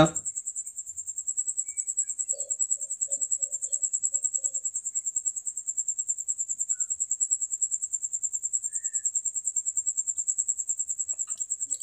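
An insect chirping steadily in a high-pitched, rapid, even pulse.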